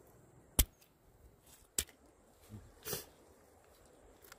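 A hand-held stone striking small river mussels on a flat rock to crack their shells. There is a sharp loud crack about half a second in, a smaller one just over a second later, and a softer crunch near three seconds.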